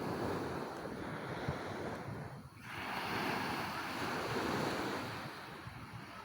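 Ocean surf: waves washing onto the beach in a steady rushing wash that eases off about two and a half seconds in, then swells as the next wave comes in.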